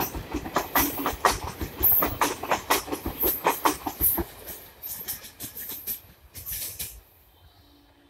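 Wheels of a passing express train's passenger coaches clattering over rail joints in a quick, irregular run of sharp clicks. The clicks fade as the last coach moves away and stop about seven seconds in.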